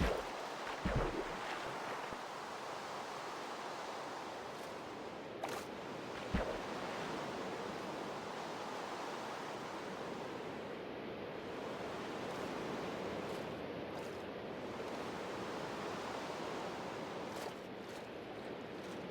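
Steady rain hiss, with a few soft thuds in the first couple of seconds and one more about six seconds in.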